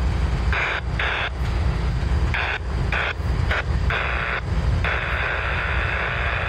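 Norfolk Southern diesel locomotives running with a steady low engine rumble. A hiss cuts in and out several times over it and holds longer near the end.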